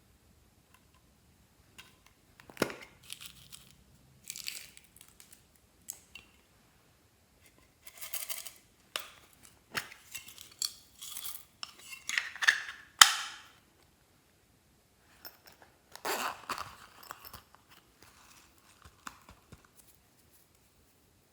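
Glossy slime being squeezed and stretched by hand, giving irregular bursts of sticky crackles and small pops with short quiet pauses between them.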